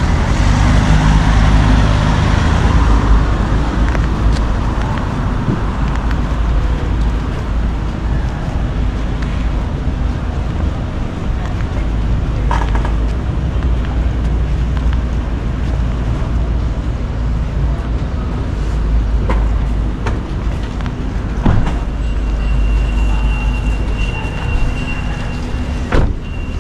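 Street traffic noise: a steady low rumble of motor vehicles, with a vehicle's engine passing close by in the first few seconds and a few light knocks later on.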